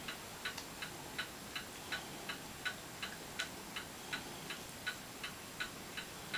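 Steady, even ticking, a little under three ticks a second, with alternate ticks slightly stronger, over faint room hiss.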